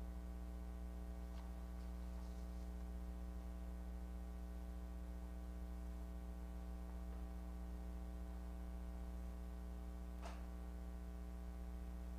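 Steady electrical mains hum with a stack of buzzing overtones in the audio feed, and a faint brief noise near the end.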